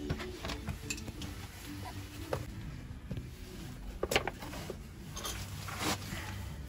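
Scattered light clicks, knocks and rattles of a plastic cam belt cover being handled and wiggled loose under a van's engine, with a couple of sharper knocks about four and six seconds in.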